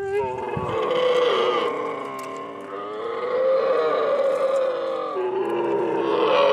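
Young dromedary camels calling in long, drawn-out pitched groans, with a dip about two and a half seconds in and another near five seconds.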